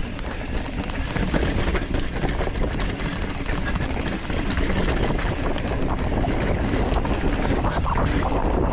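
Ragley Big Al hardtail mountain bike riding fast down rocky dirt singletrack: a steady wind rush on the microphone and low rumble, with tyres crunching over gravel and the bike rattling on many small bumps.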